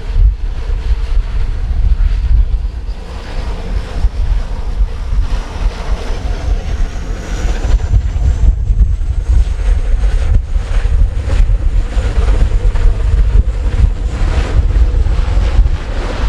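Strong gale-force wind buffeting the microphone, a heavy gusty rumble that rises and falls. A faint high whine climbs slowly in the background through the middle.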